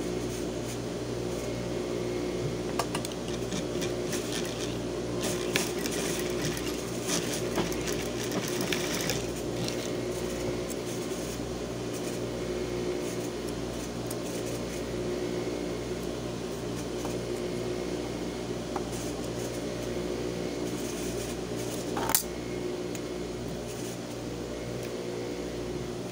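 Industrial straight-stitch sewing machine running with a steady hum, with a few short clicks, the sharpest near the end.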